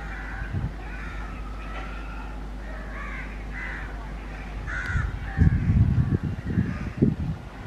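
Crows cawing repeatedly over a steady low hum. About five seconds in, a louder, uneven low rumble sets in.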